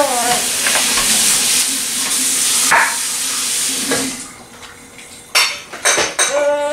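A steady hissing noise for about four seconds, then a few sharp clicks, and a baby babbling near the end.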